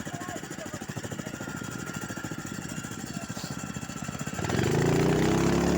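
Snowmobile engine running with a steady fast pulse, then revving up louder with rising pitch about four and a half seconds in.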